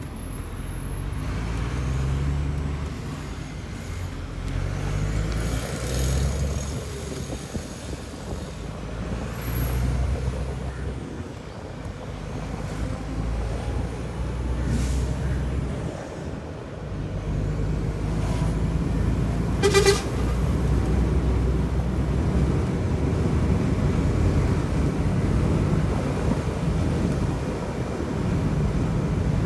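DAF truck's diesel engine running under load while driving. Its pitch climbs and drops back several times as the automated gearbox shifts up through the gears, then holds steady at cruising speed. There is one brief sharp sound about twenty seconds in.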